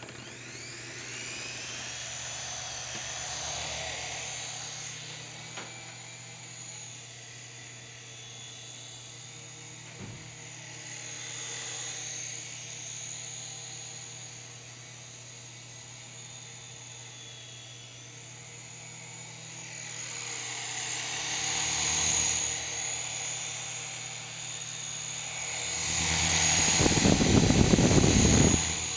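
S107G mini RC helicopter's small electric motors and coaxial rotors spinning up with a rising whine, then whirring steadily in flight. The whir swells twice and is loudest near the end.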